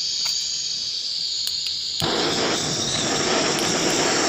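Propane turbo blowtorch hissing steadily. About two seconds in, the flame sound turns to a fuller, louder roar that holds.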